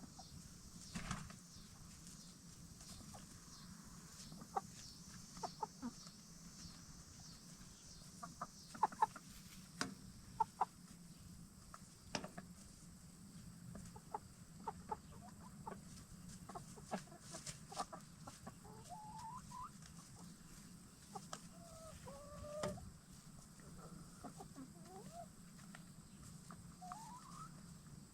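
Hens, Black Star and Bielefelder, giving soft, short clucking calls, mostly in the second half, among scattered sharp taps, over a steady low hum.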